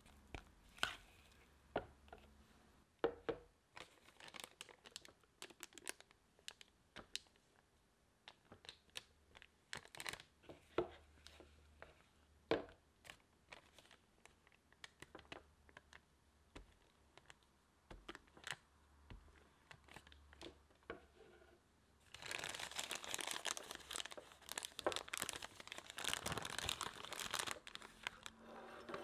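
A spatula scraping and tapping thick chocolate batter from a bowl into a piping bag, in scattered soft clicks and scrapes. For the last several seconds the plastic piping bag crinkles continuously as it is handled in a glass jug.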